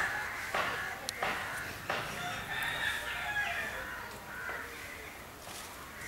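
A rooster crowing: one long drawn-out call in the middle, after three sharp clicks in the first two seconds.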